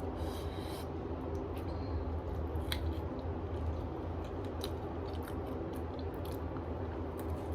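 Close-up chewing of spicy noodles and garlic chicken: a run of small wet mouth clicks and squishes, over a steady low hum.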